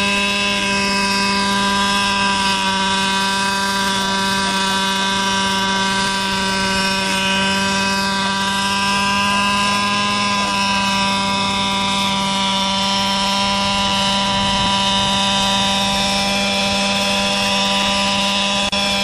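JR Ergo radio-controlled helicopter with a gas two-stroke engine and B.H. Hanson exhaust, hovering: the engine and rotors run at a steady pitch, wavering only slightly.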